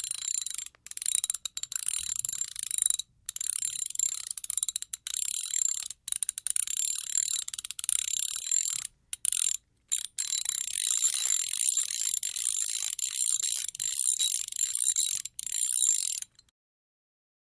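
Medium-size ratchet wrench ratcheting in long runs of rapid, high, thin clicks, broken by a few short pauses. It stops shortly before the end.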